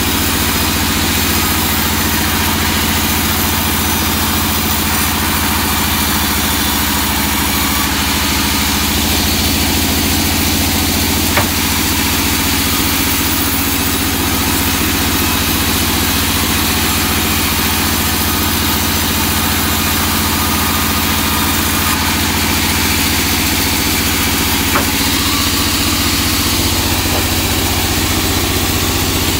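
Vertical band sawmill running with a steady machine drone while a teak log is fed through the blade. Two faint sharp ticks, about 11 and 25 seconds in.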